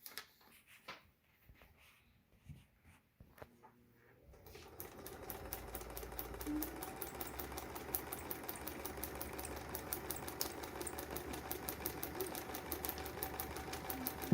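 Sewing machine stitching through paper: a few light handling clicks, then about four seconds in the machine starts and runs steadily with a rapid, even needle rhythm.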